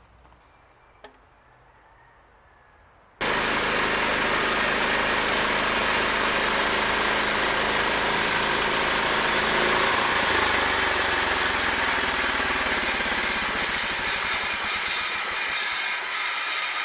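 Homemade band sawmill running, a loud steady machine noise that cuts in abruptly about three seconds in after a quiet stretch with a single click, and eases slightly near the end.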